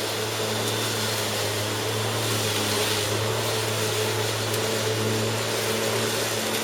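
Bosch Rotak 34 corded electric rotary lawnmower running steadily, its motor and blade humming while mowing grass.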